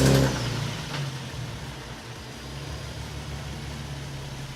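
Nissan 370Z's 3.7-litre V6 on its first start after an oil change: the revs flare, drop back over the first couple of seconds, and settle into a steady idle.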